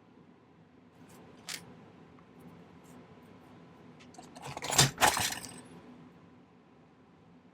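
Small metal objects clinking and rattling on a jeweller's workbench: one light click, then a short burst of clattering about halfway through.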